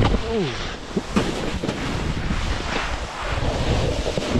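Wind buffeting an action camera's microphone while snowboarding, a steady noisy rush with low rumble, mixed with the board sliding over the snow.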